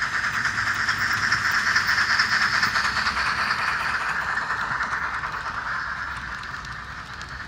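Sound of the DCC sound decoders in HO-scale C56 and C12 steam locomotive models, playing a steam locomotive's running hiss and chuffing through their onboard speakers (a C11 sound program on LokSound 4 decoders). It is loudest about two seconds in and fades gradually as the locomotives pull away behind their coaches.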